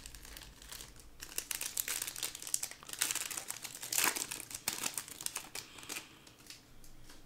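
Shiny plastic trading-card pack wrapper crinkling as it is opened and the stack of cards is pulled out. The crackling starts about a second in, comes loudest in the middle, and dies away about six seconds in.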